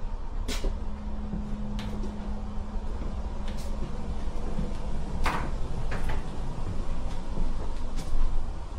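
Tram cabin sound while riding: a steady low rumble with a hum. Scattered sharp knocks and rattles come through it, the loudest about five seconds in.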